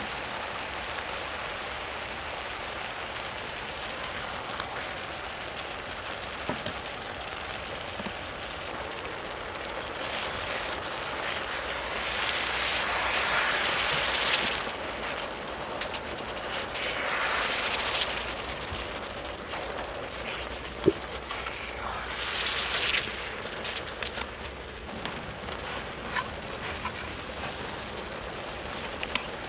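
Red-marinated beef short ribs sizzling on a hot cooking surface. The sizzle swells louder three times in the middle, and a few light clicks are heard.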